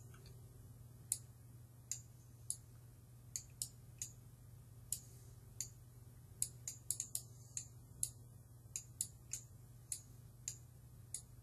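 Faint, irregular clicks of a computer mouse and keyboard, spaced from about half a second to a couple of seconds apart with a quick run of several clicks near the middle, over a low steady hum.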